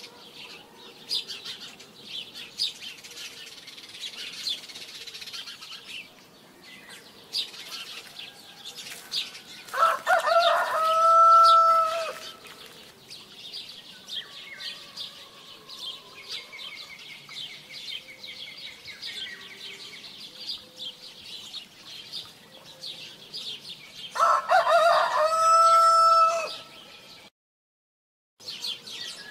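A rooster crowing twice, each crow about two seconds long and the second about fourteen seconds after the first, over the continual chirping of small birds.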